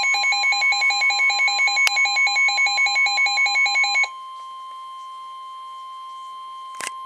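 NOAA Weather Radio alert: a receiver's alarm beeps rapidly over the steady 1050 Hz warning alarm tone that signals an urgent warning is coming. About four seconds in, the beeping stops and the plain tone carries on more quietly, with a short click near the end.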